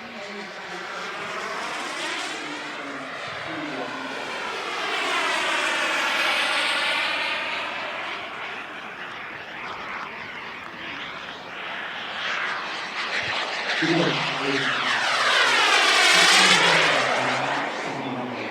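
Radio-controlled turbine jet, a Hangar 9 Aermacchi MB-339 model, making two fast passes overhead. Its turbine whine and jet rush swell and fade each time, loudest a few seconds in and again near the end.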